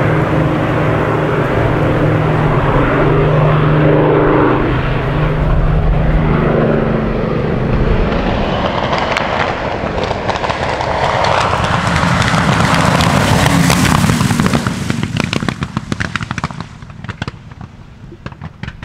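P-51 Mustang's piston engine running on a low approach with a steady drone. About three-quarters through the throttle comes back: the level drops and the engine pops and crackles at idle as the plane rolls out after landing.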